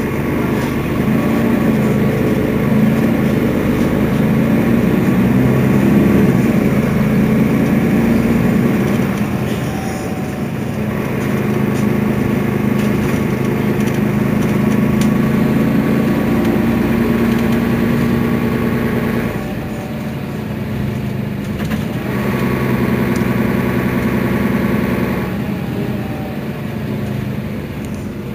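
Mercedes-Benz Citaro Facelift city bus engine running: a steady low hum that swells and eases off several times, dropping back for a couple of seconds about a third of the way in and again about two-thirds in.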